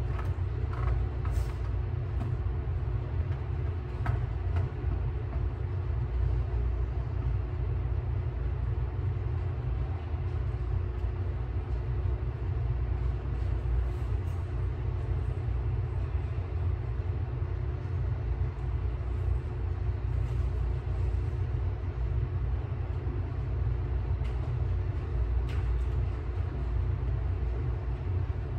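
Steady low rumble of a ventilation system with a faint constant hum, and a few faint clicks scattered through it.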